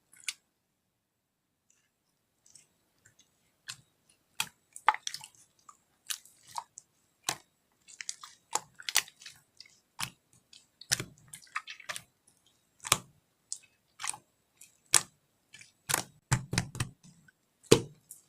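Slime being squeezed and pressed by hand, giving irregular sticky clicks and pops, with a few heavier squelches near the end.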